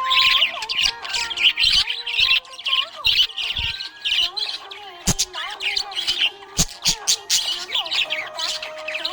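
Budgerigars chirping and warbling in a rapid, continuous chatter, with a couple of sharp clicks around five and six and a half seconds in.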